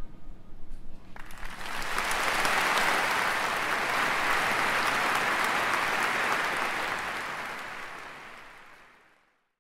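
Large audience applauding. The clapping swells about a second in, holds steady, then fades away near the end.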